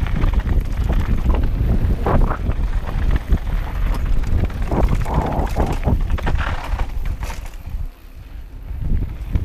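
Wind buffeting the camera's microphone over the rattle and crunch of a downhill mountain bike's tyres and frame on a loose gravel trail at speed, easing briefly near the end.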